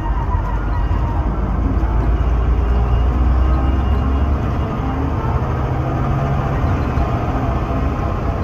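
Bus engine and road noise heard from inside the cab while driving, a loud deep drone. The low engine note steps up in pitch about halfway through.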